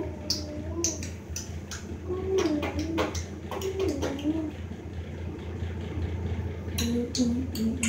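A person's voice making wordless sounds that slide up and down in pitch, over a steady low hum.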